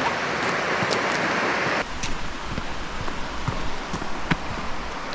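Creek water running over rocks: a steady rushing noise, its tone changing abruptly about two seconds in, with a few faint ticks.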